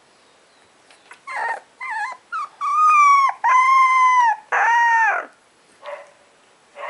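Young puppy howling: a few short high calls, then three long howls held about a second each, then two brief calls near the end.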